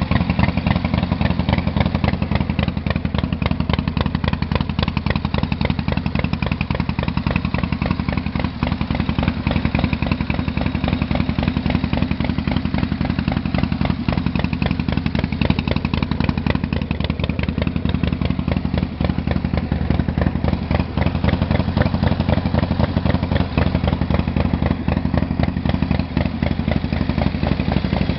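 Harley-Davidson Panhead V-twin motorcycle engine idling steadily, its pitch holding level throughout.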